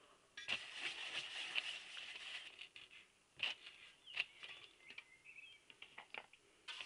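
A stiff brush scrubbing and scraping against a metal pot: a scratchy rasp for about two seconds, then a few scattered taps and scrapes.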